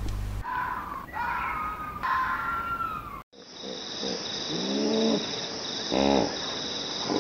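Fox calls, high whining calls that fall in pitch, then after a cut about three seconds in, a hippopotamus's deep grunting calls, a few in a row over a steady high hiss.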